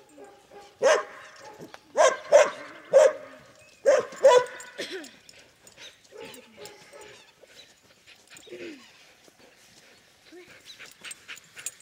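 A dog barking: six loud barks in the first half, some in quick pairs, then only faint sounds.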